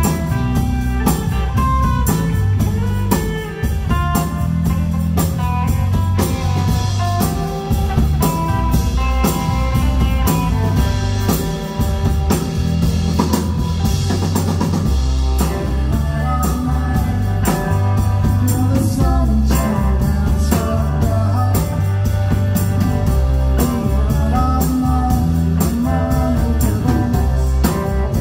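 Rock band playing live: electric guitar, electric bass and drum kit, with a steady drum beat throughout.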